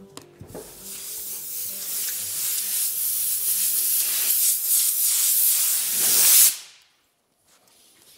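A loud rushing hiss that builds over several seconds and cuts off suddenly, under the last of some background music.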